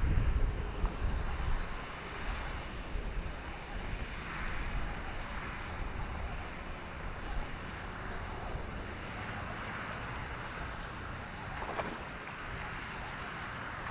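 Wind buffeting the microphone: a steady low rumble with a hiss of wind over the water.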